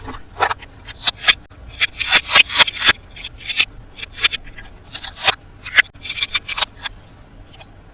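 Toy packaging being handled and opened: a run of short, scratchy rustles and scrapes, thickest about two seconds in and again about six seconds in.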